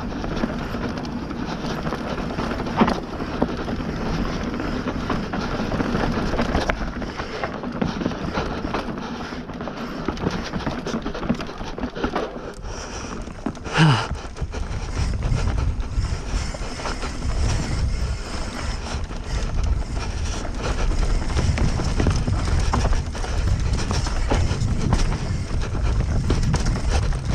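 Bird Zero AM MK3 hardtail mountain bike ridden down a dry, dusty dirt trail: continuous tyre rumble and frame and chain rattle, with knocks over bumps. There is a sharp knock about halfway, and a heavier rumble after it.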